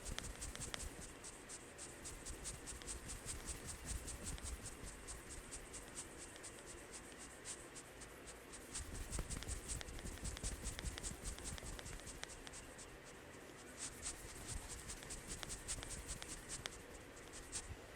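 Fingers rubbing and scratching through hair on the scalp during a head massage, a dense run of quick, irregular scratchy ticks that thins out and picks up again.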